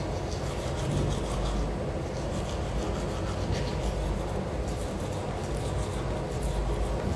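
Manual toothbrush scrubbing teeth, with repeated short scratchy strokes, over a steady low rumble.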